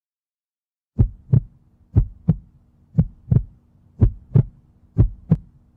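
A heartbeat sound, double low thumps in a lub-dub pattern about once a second, starting about a second in: five beats in all.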